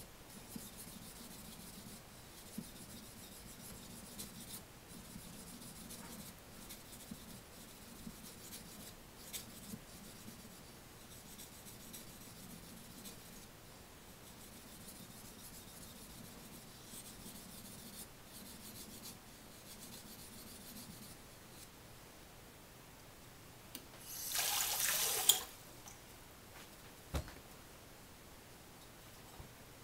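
Steel blade of a small curved Japanese knife (namazori kogatana) stroked back and forth on a wet Okahana aoto natural whetstone, a faint steady scraping rub of medium sharpening. Near the end, a brief louder rushing noise and then a single knock.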